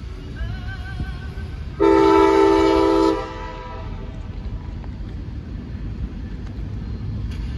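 CSX diesel locomotive horn sounding one steady multi-tone blast of about a second and a half, about two seconds in, over the low rumble of the moving train.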